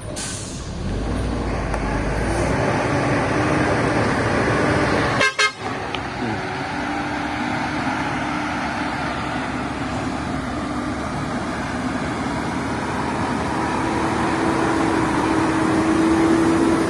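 Heavy logging truck's diesel engine running hard under load, with a steady droning tone that grows louder in the last few seconds and a brief break about five seconds in.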